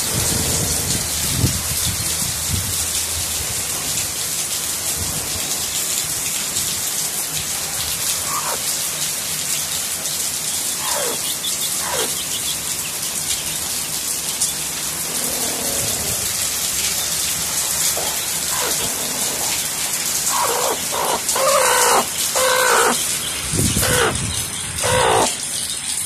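Rain falling steadily as a constant hiss. A few short animal calls break through it, and a run of louder repeated calls comes in over the last several seconds.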